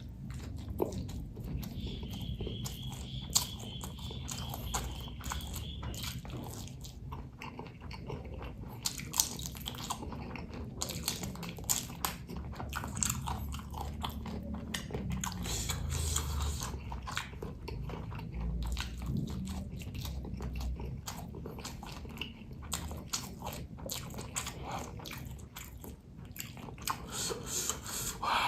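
A person eating close to the microphone: chewing and biting food, with many small crunches and wet mouth clicks.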